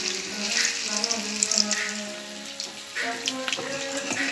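Hot oil sizzling and crackling in a wok as floured chicken pieces fry, with background music of held notes under it.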